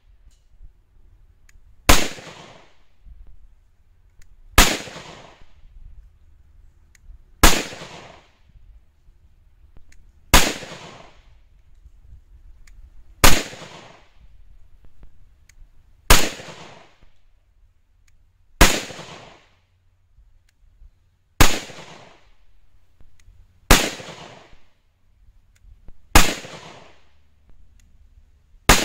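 Smith & Wesson M&P 5.7 pistol firing 5.7x28mm rounds one at a time: eleven sharp shots, evenly paced about every two and a half to three seconds, each followed by a short echo.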